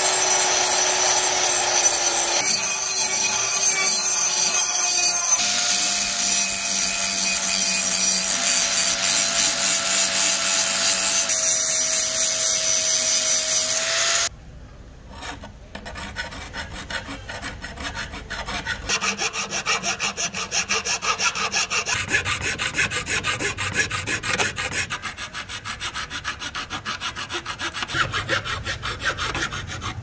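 A rotary tool with a mounted grinding stone runs steadily against the wavy steel blade of a kris, its whine stepping to a new pitch a few times. About halfway through it cuts off, and a hand file rasps along the steel edges in quick repeated strokes.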